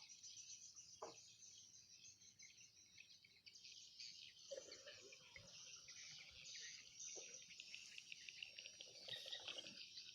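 Faint insects chirping continuously in a high, dense chorus, with a few short bird calls among them.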